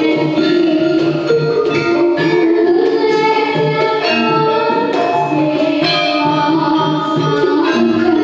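Javanese gamelan ensemble playing a steady piece of struck metal tones over a regular pulse of low strokes. A child's voice sings along into a microphone.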